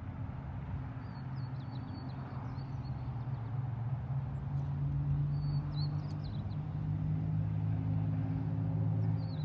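A low, steady motor hum that grows slowly louder, with a bird chirping in three short bursts over it.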